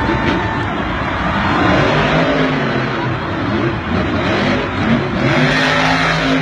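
Monster truck engine revving hard and unevenly, its pitch rising and falling as the truck is driven through stunts on the dirt floor, over a dense wash of arena noise.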